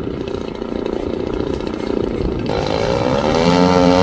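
Radio-controlled model aircraft engine running. After a rushing, unpitched stretch, a strong engine note comes in sharply about two and a half seconds in, climbs in pitch and wavers.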